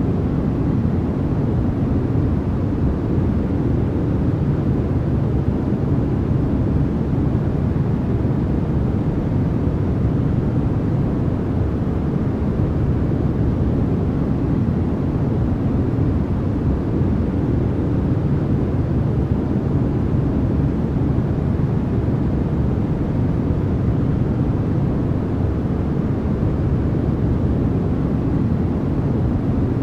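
Steady, unbroken noise from a sleep-noise track, with no changes. Most of its weight sits low, so it comes across as a deep rush or rumble with only a little hiss on top.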